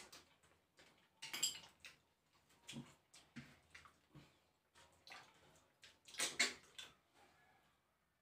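Wet slurping and lip-smacking as snails in coconut milk are sucked out of their shells and chewed, in short separate bursts.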